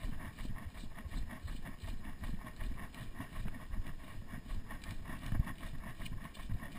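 Wind buffeting the microphone of an action camera on a boat at sea: a gusty low rumble that surges and eases unevenly.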